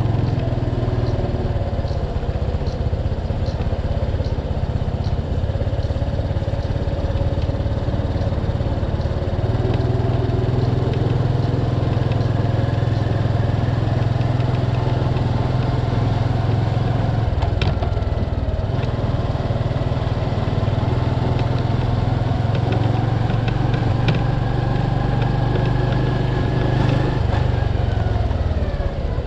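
Motorcycle engine running while riding along a street, its note rising and falling gently with the throttle, then falling away near the end as the bike slows.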